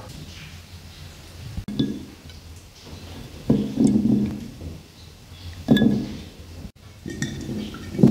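Dishes and a glass jar being set down and handled on a wooden table: a handful of separate clinks and knocks, the loudest about three and a half and six seconds in.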